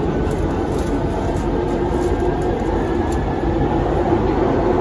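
Steady running noise inside a Kawasaki C151 metro carriage as the train travels: a low rumble of wheels and running gear on the rails, with a faint steady tone above it.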